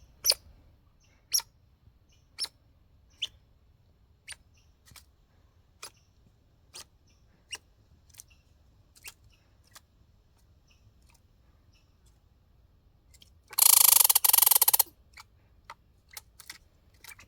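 A squirrel making short, sharp hiccup-like clicks about once a second, the first few loudest and then fading. Near the end, a loud, harsh burst of rapid pulses lasting about a second, followed by a few more clicks.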